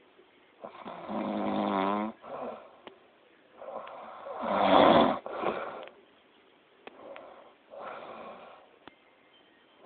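Loud snoring in deep sleep. A long pitched snore comes about half a second in, with a short one after it. The loudest and harshest snore falls about halfway through, and fainter snoring breaths follow near the end.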